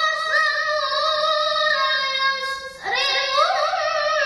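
A boy's voice in melodic Quran recitation (tilawah), holding a long, wavering, ornamented note. A quick breath comes just under three seconds in, then a new phrase climbs in pitch.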